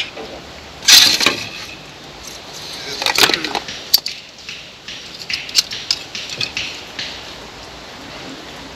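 Rustling and clatter of food items and packaging being handled and packed by gloved hands, with a louder rustle about a second in and another about three seconds in, then a sharp click and a scatter of small clicks.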